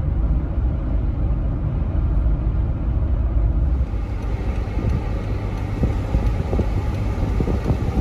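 Road noise inside a moving car: a steady low rumble of tyres and engine, turning brighter with more hiss about four seconds in, with a few faint knocks near the end.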